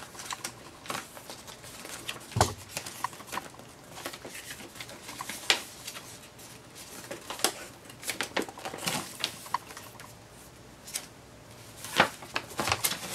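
Large folded paper playmat being unfolded by hand: irregular rustling with crisp paper snaps and crackles, the loudest about two seconds in and near the end.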